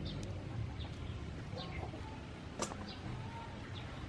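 Background birds chirping, short high falling chirps every half second or so, over a steady low rumble, with one sharp click about two and a half seconds in.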